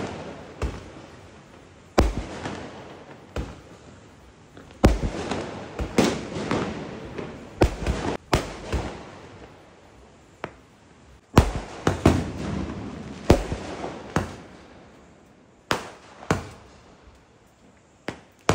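Aerial fireworks bursting overhead: more than a dozen sharp bangs at irregular intervals, each followed by crackling and a lingering echo.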